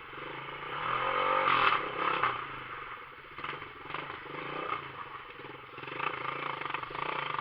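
Motorcycle engine running through a bare exhaust pipe with no muffler, rising briefly about a second in and then settling back.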